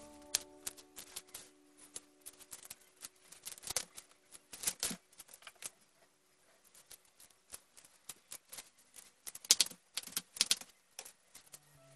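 Footsteps in flip-flops slapping and clicking irregularly on a tiled floor, the loudest steps near the end.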